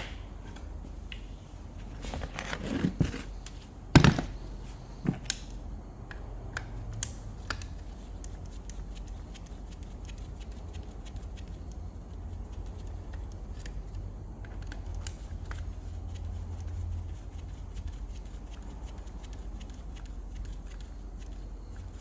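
Bench work: scattered clicks and knocks of parts and tools being handled, with a burst of rattling about two to three seconds in and one louder knock about four seconds in, over a steady low hum.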